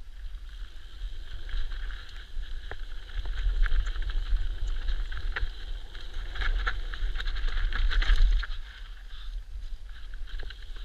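Mountain bike riding fast down a dirt trail: wind rumbling over the action camera's microphone, tyres hissing on loose ground, and sharp clicks and rattles from the bike over rough ground. It grows louder from a few seconds in and eases off near the end.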